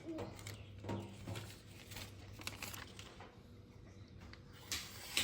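A freshly sharpened kitchen knife slicing through paper in a sharpness test: faint rustling and scratching, with a longer hissing cut near the end.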